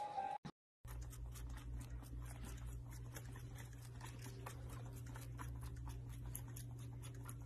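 Baby goat sucking milk from a bottle nipple: a run of small, irregular wet clicks over a steady low hum.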